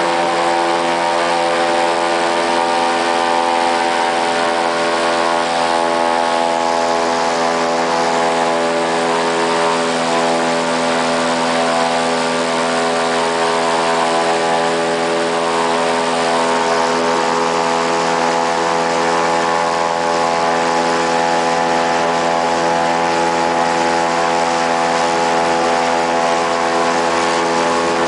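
Airboat's engine and air propeller running at a steady speed: one loud, unchanging drone with no change in pitch.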